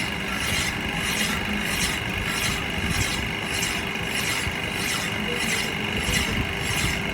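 Rhythmic hand rasping strokes on a metal shaft, about one and a half strokes a second, over a steady machine hum.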